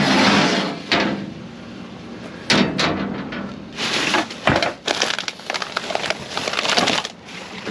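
Junk being rummaged through and shifted by hand: an irregular run of clattering, crunching and scraping crashes as debris is pushed and thrown about.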